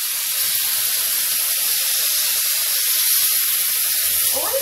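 Vegetables and squid sizzling hard in a hot frying pan as soy sauce is poured in: a loud, steady hiss.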